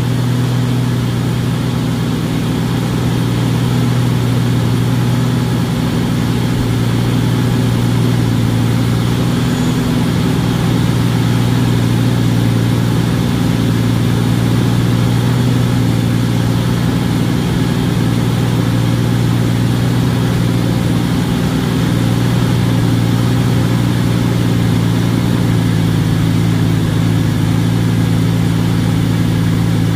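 1984 AMC Eagle's engine idling steadily on a freshly rebuilt Motorcraft 2150 two-barrel carburetor, running a lot better though still in need of fine tuning, in the owner's judgment. The idle eases slightly lower near the end.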